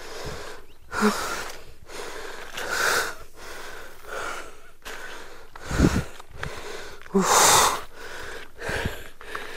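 Heavy, rasping breaths close to the microphone, one every second or so, from a person labouring up a steep climb. A low thump about six seconds in.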